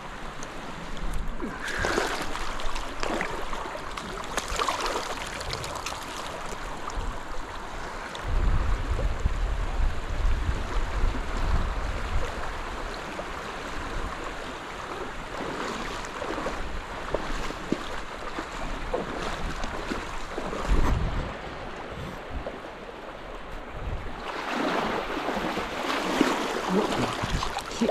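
River current rushing steadily over shallows, with low rumbles at times from wind buffeting the microphone.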